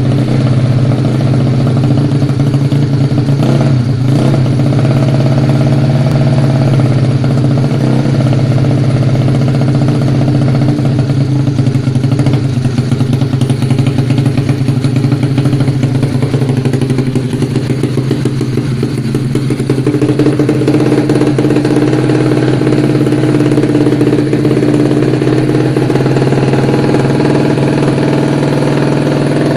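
Yamaha Mio scooter's single-cylinder four-stroke engine running steadily near idle while it is being tuned, its pitch shifting slightly a few seconds in and again about two-thirds of the way through.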